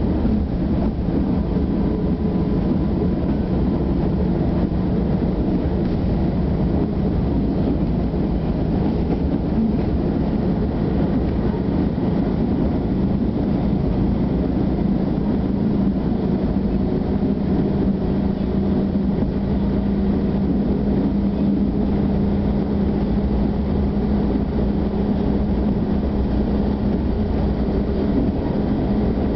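Inside a moving passenger train: steady rumble of the wheels on the rails, with a low hum that rises slowly in pitch as the train runs on.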